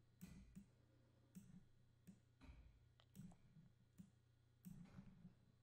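Near silence with several faint computer mouse clicks scattered through, over a low steady room hum.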